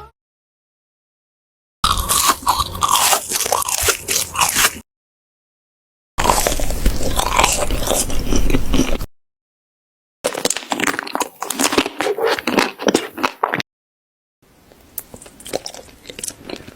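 A cat chewing and crunching food, in four stretches of about three seconds each, separated by dead silence. The last stretch is quieter.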